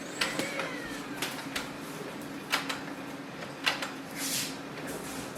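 Brother HL-L2370DW laser printer going through its start-up warm-up after power-on: a steady motor hum with several sharp mechanical clicks and a short hiss about four seconds in.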